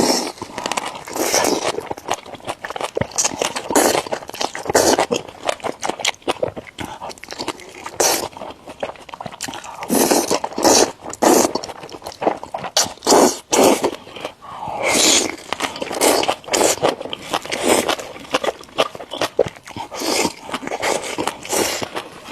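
Close-miked eating sounds, with chewing, crunches and mouth smacks coming irregularly throughout.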